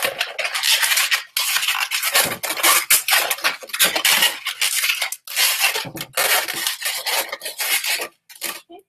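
Inflated 260 latex modelling balloons being twisted and rubbed together in the hands, a dense run of rubbing squeaks. It breaks off briefly about a second and a half in and again just after five seconds, and dies away near the end.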